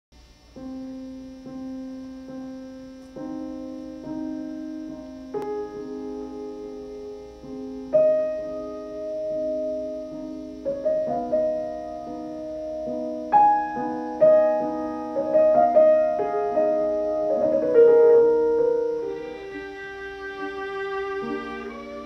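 Viola and piano playing a classical piece together: sustained bowed melody notes over piano accompaniment, the notes moving in steps and growing louder from about eight seconds in.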